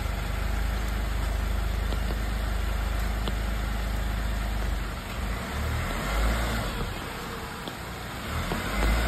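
Tata Punch's 1.2-litre three-cylinder petrol engine idling with a steady low rumble, which turns uneven about five seconds in.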